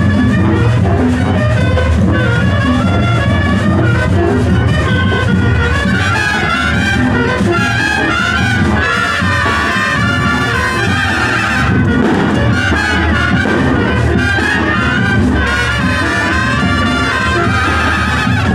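Parade marching band playing, trumpets and trombones carrying the tune over drums.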